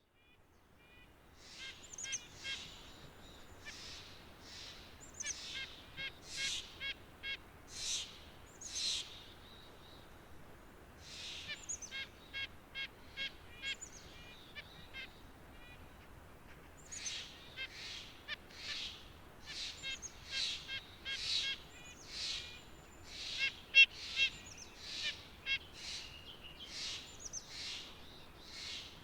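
White-breasted nuthatch calling: many short, high notes in quick runs, with two brief lulls.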